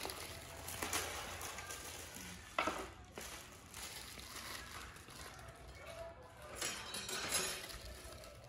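Quiet rustling and handling of vegetables in plastic bowls, with a few short knocks; the sharpest comes about two and a half seconds in.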